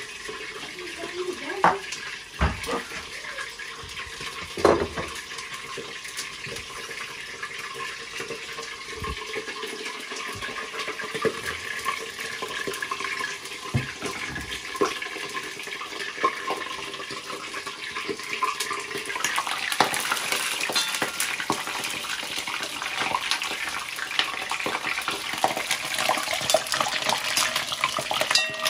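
Lamb frying in hot oil in a plov cauldron, a steady sizzle with a few sharp knocks of a utensil against the pot early on. About two-thirds of the way through, the sizzling crackle gets much louder and fuller.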